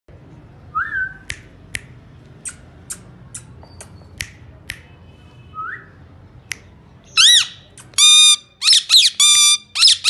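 Indian ringneck parrot: scattered sharp clicks and two short rising whistles, then from about seven seconds in a run of loud, high squawks in quick succession.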